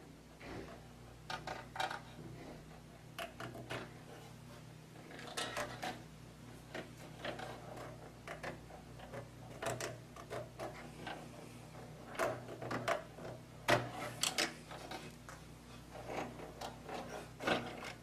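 Scattered faint clicks and rustles of hands plugging SATA data and power cable connectors onto an SSD and moving the cables about inside a desktop computer case.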